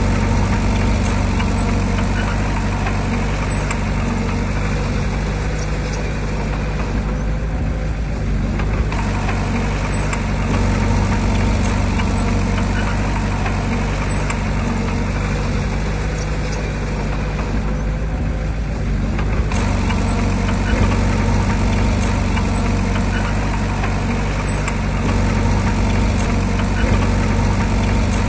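Diesel engine of heavy earthmoving machinery, a bulldozer or dump truck, running steadily and loudly. Its upper, harsher part eases off for a moment twice, about 7 and 17 seconds in, then comes back.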